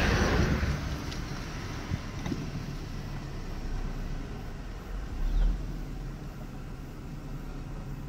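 A car passing close by, its noise swelling at the start and fading away over about a second, over a steady low rumble, with a brief low bump about five seconds in.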